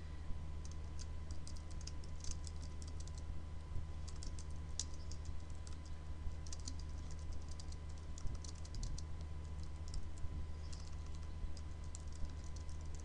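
Typing on a computer keyboard: irregular runs of quick keystrokes with short pauses, over a steady low hum.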